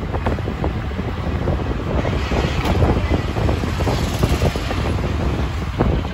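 Ride in a moving auto-rickshaw: the engine's steady low rumble and road noise, with frequent short rattles and wind buffeting the microphone through the open side.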